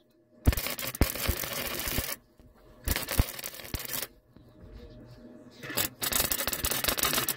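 MIG welder arc crackling as beads are laid on a steel exhaust pipe, in three runs of a second or two with short pauses between.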